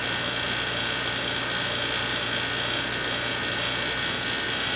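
Steady electrical buzz and hiss from a high-voltage plasma discharge running through neon in a glass vacuum chamber.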